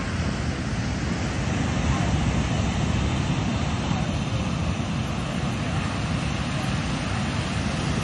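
Ocean surf breaking and washing onto a sandy beach as a steady rumbling wash, with wind buffeting the phone microphone.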